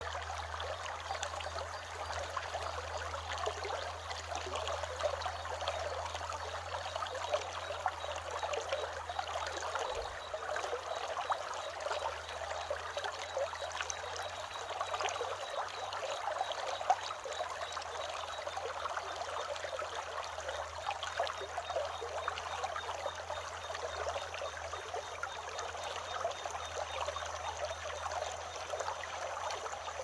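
Small stream trickling and gurgling steadily, with cicadas droning faintly in the background.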